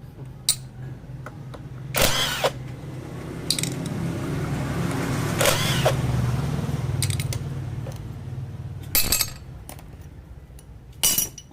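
Several sharp metallic knocks and clinks from hand tools on engine parts while the clutch is being taken off, over a low motor hum that swells in the middle and then fades.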